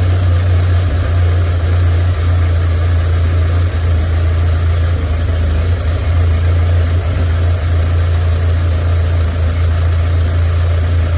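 Audi 2.0 TFSI four-cylinder turbo engine idling steadily on its first run after an aftermarket intake manifold has been fitted.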